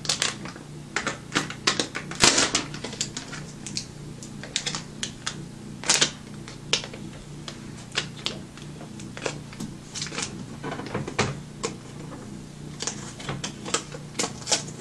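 Protective plastic film being peeled off and crinkled: an irregular run of sharp crackles and clicks, with a faint low hum underneath.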